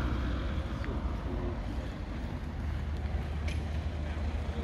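Steady low outdoor rumble with no single clear source, carrying on evenly throughout.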